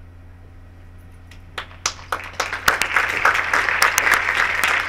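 Audience applauding. It starts with a few scattered claps about a second and a half in and quickly swells into steady applause.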